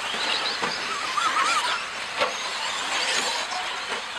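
Scale electric 4WD short course RC trucks racing on a dirt track: a high motor and drivetrain whine that rises and falls with the throttle, over a hiss of tyres on dirt, with a few sharp knocks.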